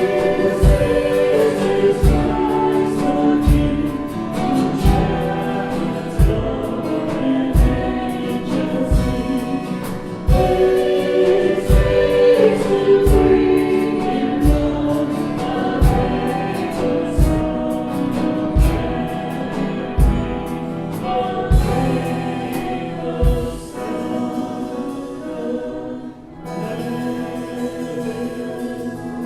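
Worship song with group singing over a steady kick-drum beat; the drum drops out near the end, leaving softer accompaniment.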